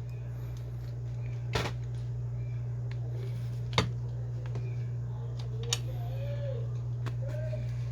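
A few sharp, separate clicks and taps from small tools and parts being handled while a smartphone is taken apart, over a steady low hum.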